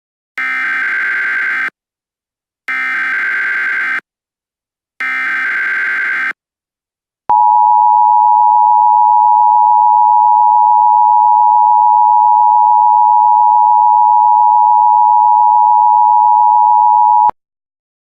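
Emergency Alert System tones: three short bursts of SAME digital header data, about a second each with short gaps between them, then the steady two-tone attention signal held for about ten seconds before it cuts off.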